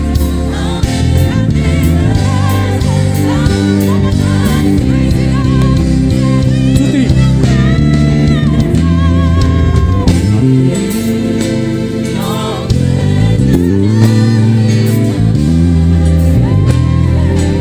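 Live gospel worship music: singers over a band with a prominent bass line and guitar.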